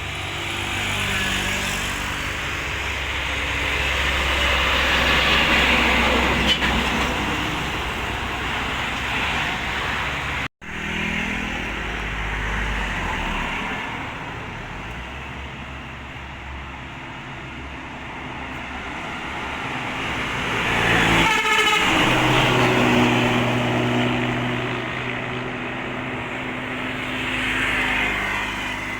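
Buses passing on a road, engine and tyre noise swelling and fading as each goes by, with a bus horn tooting the rapid 'tretet' horn typical of East Java intercity buses. The sound drops out for an instant about ten seconds in.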